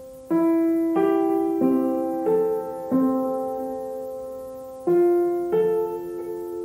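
Background piano music: a slow, gentle melody of single notes and soft chords, each note struck and left to fade.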